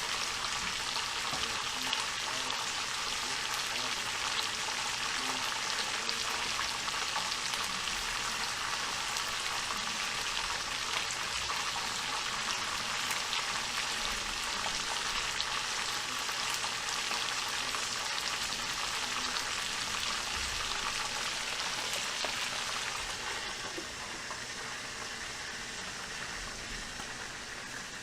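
Food frying in hot oil: a steady crackling sizzle that softens a little near the end.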